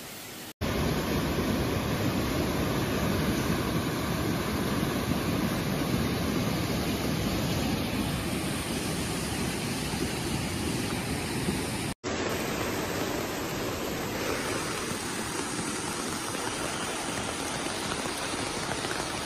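Fast-flowing floodwater rushing, a steady noise on a phone microphone. Partway through it cuts abruptly to a second stretch of rushing floodwater.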